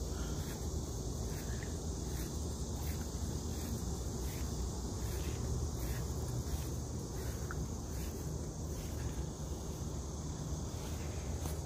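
Steady high-pitched chorus of insects, likely crickets, with a low rumble underneath.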